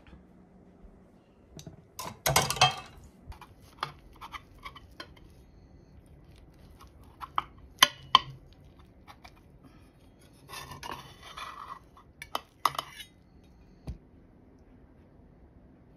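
A spatula cutting and scraping a baked waffle in a cast iron skillet, with scattered knocks and clinks of the pan and a plate. The loudest clatter comes about two seconds in, and there are short scrapes near the end.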